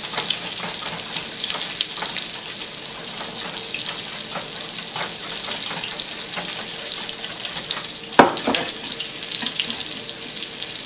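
Steady sizzle of a red snapper fillet frying skin-side down in a nonstick pan, with a wire whisk clicking and scraping in a stainless steel saucepan as egg yolks are whisked into a cauliflower puree. One loud knock about eight seconds in as the saucepan is moved.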